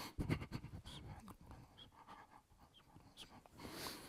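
Faint rustling and small clicks from a congregation holding the bow of prayer, clothing and bodies shifting, busiest in the first second and a half. A soft hiss near the end.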